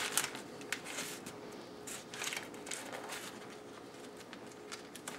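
Clear plastic vacuum-sealer bag rustling and crinkling in short, scattered bursts as a hand opens it out on a countertop, over a faint steady hum.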